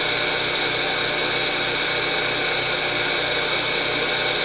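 12-inch disc sander running steadily, an even motor hum and whir with a faint regular pulsing low down.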